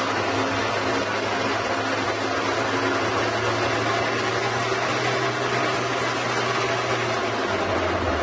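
Horizontal band sawmill running as it cuts through a large log: a steady machine hum with a constant low tone under an even, rushing noise.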